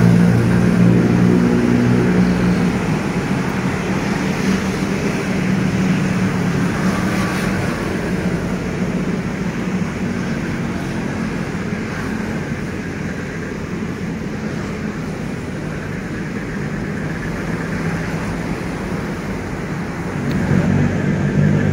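Steady road traffic noise. A heavier vehicle's engine hum swells at the start and again about twenty seconds in.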